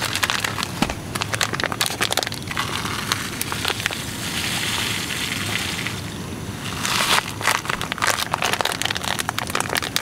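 A sugar packet crinkling as it is handled and squeezed. In the middle a steady hiss runs for a few seconds as sugar is poured into the aluminium kettle.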